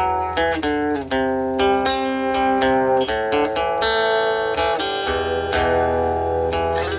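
Guitar picking an instrumental melody between sung lines, quick plucked notes ringing one after another over a steady low hum.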